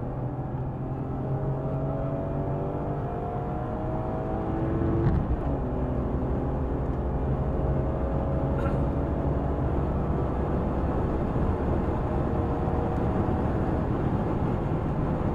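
BMW M3 E46's straight-six engine pulling under acceleration, its pitch climbing steadily. It shifts up with a short knock about five seconds in, then climbs again and drops once more near the end.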